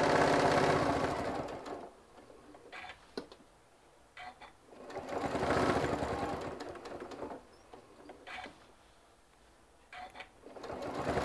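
Electric sewing machine top stitching in three short runs, stopping and starting again between them. There are a few small clicks in the pauses as the work is turned.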